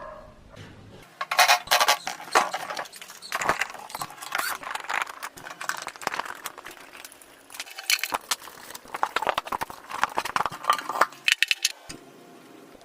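Metal clinking and rattling: irregular clusters of sharp clicks and jingles, as small metal parts or tools are handled. They stop about a second before the end.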